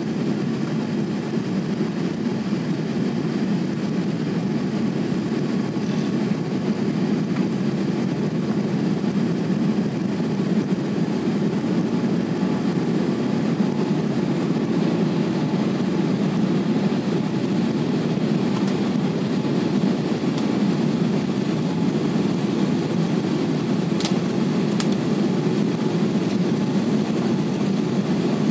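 Steady rumble of a twin-engine jet airliner, heard from inside the cabin: engine and airflow noise during the descent on approach to landing.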